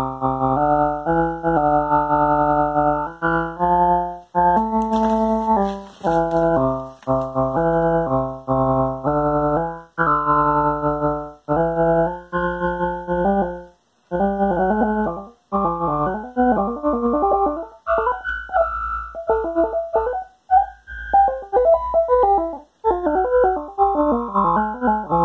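Moog Subharmonicon and Eurorack modular synthesizer playing a fast sequenced pattern of stepped synth notes over a low pulsing bass tone. Around the middle the notes start to bend and waver in pitch, and there is a short burst of hiss early on.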